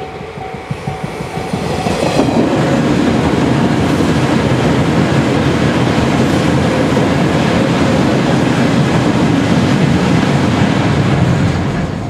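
A JR East 485-series electric joyful train passing close by: the rumble and clatter of its wheels on the rail joints swell about two seconds in, hold steady as the cars go by, and ease off near the end.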